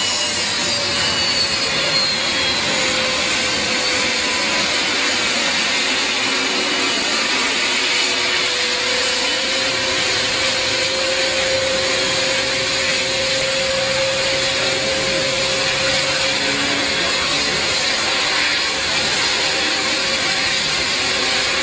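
Beriev Be-200 amphibious aircraft's two turbofan engines running steadily as it taxis: an even jet rush with a whine over it. A high tone falls in pitch over the first few seconds.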